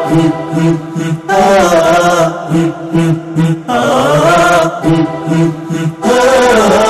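Music with a solo voice chanting long, ornamented melodic phrases that bend up and down in pitch, a new phrase starting every couple of seconds over steady low notes.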